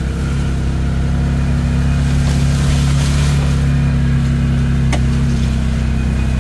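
Off-road side-by-side's engine running steadily while driving, a low drone that steps up slightly in pitch about half a second in. A single sharp click about five seconds in.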